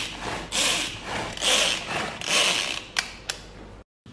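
Pull-cord manual food chopper whirring in repeated pulls, about one a second, its blades chopping tomato, onion and garlic in the plastic bowl. Two sharp clicks near the end, then the sound cuts off suddenly.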